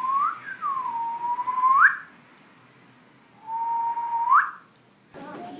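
A person whistling: a short rising note, then two long held notes, each ending in a quick upward swoop, with a pause between them.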